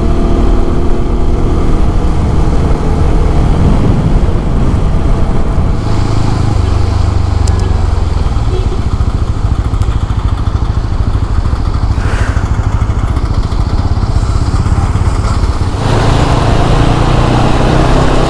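Single-cylinder engine of a TVS Apache RTR 200 4V motorcycle running on the move, with a steady rush of wind and road noise. The engine's pitch shifts a few times, settling lower about six seconds in and changing again near the end.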